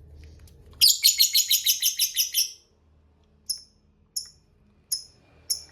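Lovebird chattering: a rapid trill of about a dozen sharp, high notes lasting under two seconds, the 'ngekek' call. Four short single chirps follow, spaced well apart.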